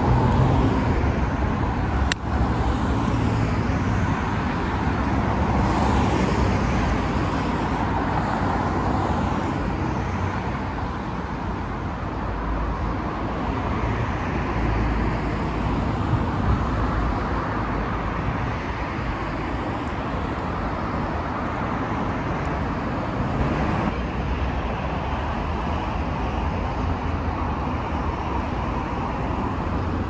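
Steady road traffic noise with a low rumble, and a single sharp click about two seconds in.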